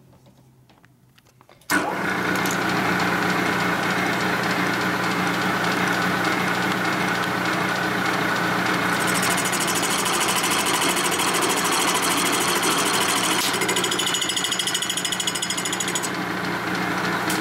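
Milling machine starts up abruptly about two seconds in and runs steadily, an offset boring head sweeping a cut through the aluminium combustion chamber of a Harley-Davidson panhead cylinder head. The cut sounds heavier, which the machinist takes as a sign that he may be taking a double 25-thou pass.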